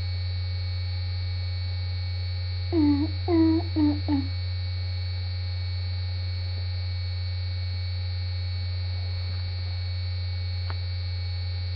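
Steady low electrical mains hum on the recording, with four short pitched calls about three to four seconds in.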